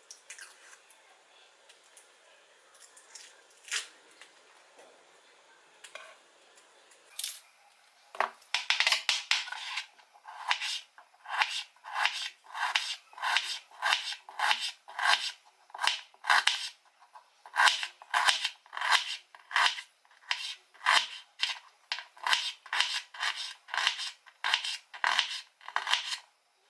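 Rhythmic cutting strokes, about two a second, begin about eight seconds in after a few faint clicks. These are typical of cutting slits into raw chicken legs.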